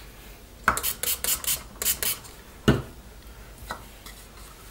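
White paint being mixed with water in a small clear plastic cup: a quick run of short scraping strokes against the cup, then a single sharper knock about two and a half seconds in.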